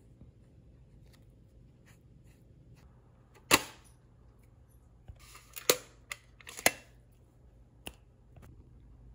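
Small metal watercolour paint tin being set down and opened: one sharp clack, then a quick run of smaller metallic clicks and clacks as the lid and pans are handled, and one last click a little later.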